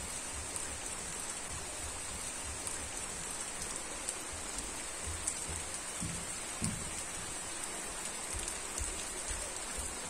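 Steady hiss of rain, with a constant high-pitched ring over it and a few soft low thumps scattered through.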